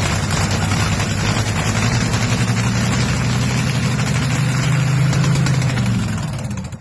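An engine idling with a steady low hum, swelling slightly and then dying away near the end.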